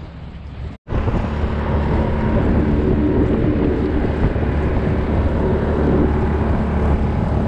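Small boat's outboard motor running steadily under way, with water rushing along the hull and wind on the microphone. It starts just under a second in, after a brief dropout.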